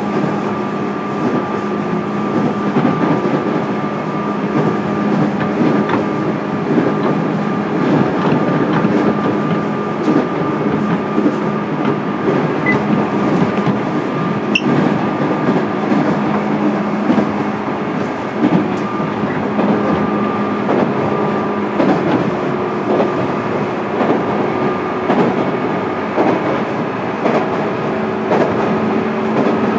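JR East 205-series electric train heard from inside motor car MoHa 205-608, running at a steady speed with a steady even-pitched hum over a continuous rumble. Wheels click and clack over the rails.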